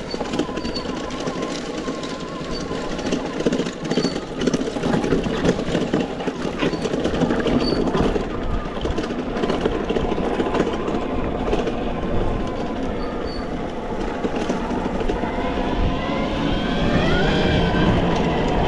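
Off-road riding on an Arctic Leopard electric bike: wind buffets the microphone while the tyres and frame rattle and clatter over rough ground. Near the end a whine rises in pitch as the motor speeds up.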